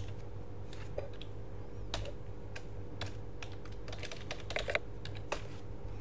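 Computer keyboard keystrokes: a key press right at the start, scattered single clicks, then a quick run of keys about four and a half seconds in and a last keystroke just after, the sudo password being typed and entered. A steady low hum runs underneath.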